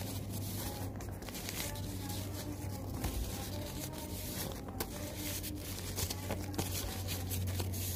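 Thick tissue paper rustling and crinkling as it is folded into fan-shaped pleats, over a steady low hum.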